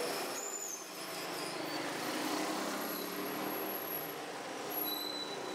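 Street traffic: a steady hum of passing vehicles and engines, with a few faint brief high squeaks.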